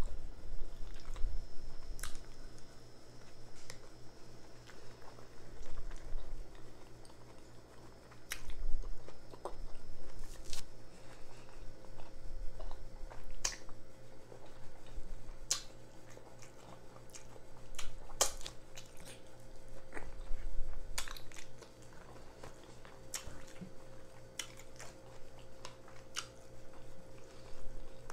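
Close-up eating sounds: chewing and biting into a loaded jalapeño cheddar sausage in a bun, with wet mouth smacks and scattered sharp clicks throughout.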